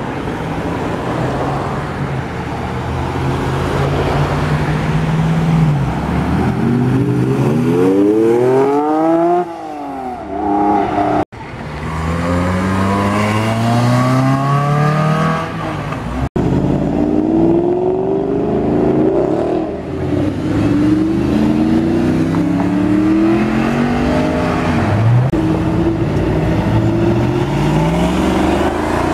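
Sports cars accelerating hard away one after another, engines revving up through the gears with rising pitch, one passing close by. The sound cuts off abruptly twice, about 11 and 16 seconds in, where one car gives way to the next.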